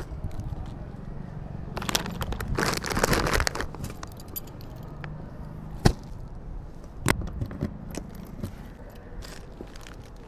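Handling noises: a spell of rustling and scraping about two seconds in, then two sharp clicks a second or so apart, over a low steady hum.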